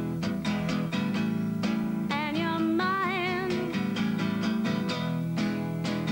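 Acoustic guitar strummed in a steady, driving rhythm. A woman's voice comes in about two seconds in, holding a sung note with a wavering vibrato for about a second and a half.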